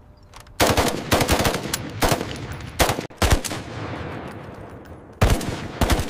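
Heavy belt-fed machine gun firing, starting about half a second in: a quick string of shots, then widely spaced heavy reports, each trailing off in a long echoing rumble.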